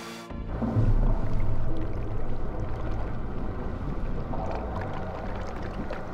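Cartoon underwater sound effect: a low, muffled rumble of moving water that cuts in abruptly just after the start, with faint held tones above it.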